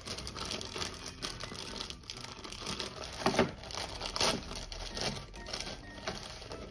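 Thin clear plastic bag crinkling and rustling as hands open it and handle the paper leaflets inside. Irregular rustles, with a couple of louder crackles around the middle.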